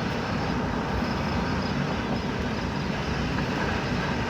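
Steady road and engine noise of a car being driven, heard from inside the cabin, with no distinct knocks or thunderclaps.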